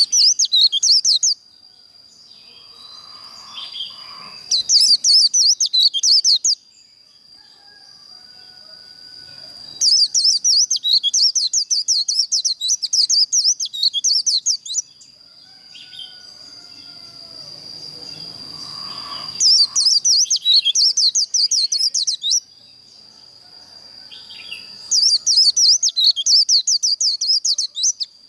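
White-eye singing its fast, high twittering 'líu' song in five bursts a few seconds apart, the longest about five seconds. A steady thin high tone runs underneath.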